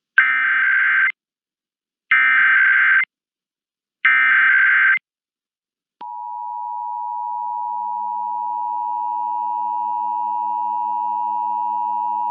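Emergency Alert System tones: three one-second bursts of SAME digital header data, about two seconds apart, then about six seconds in the steady two-tone EAS attention signal (853 and 960 Hz) starts abruptly and holds.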